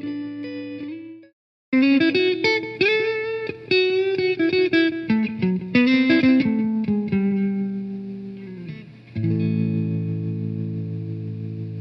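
Guitar music with effects. It cuts out briefly about a second in, returns as a run of quick picked notes, and settles into a held chord near the end.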